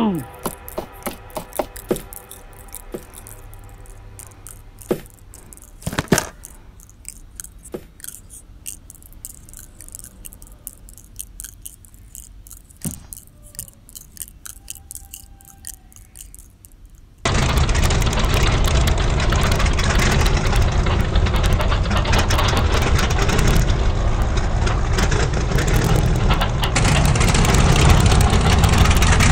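Scattered faint clicks and knocks, with a louder thud about six seconds in. A little past halfway, a loud, steady car engine running at idle cuts in abruptly.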